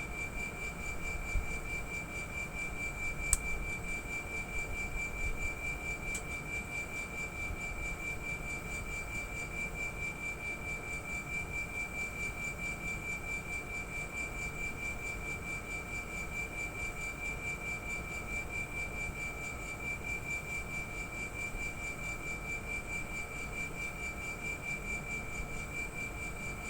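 Air conditioner outdoor unit's compressor running with a steady high-pitched whine, an abnormal noise for the unit, its loudness pulsing gently. Two short ticks sound about three and six seconds in.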